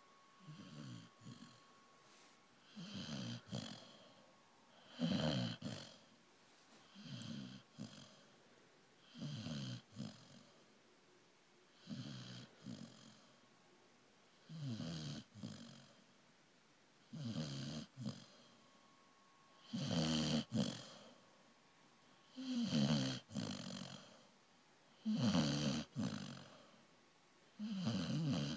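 Blue-nose pit bull snoring in deep sleep: a regular series of rasping snores, about one every two to two and a half seconds, getting louder in the second half.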